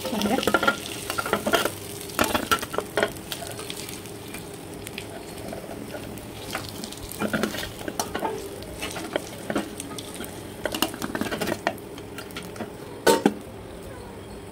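Snakehead murrel (viral) fish slices sizzling in oil on a tawa, with repeated clinks and scrapes as the fried slices are lifted off the pan onto a steel plate. A louder clatter comes near the end.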